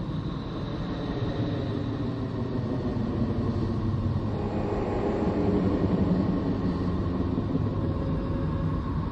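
A planet 'sound' of the kind made by turning spacecraft electromagnetic signal recordings into audio. It is a steady, low rumbling drone with faint held tones above it, growing slightly louder about halfway through.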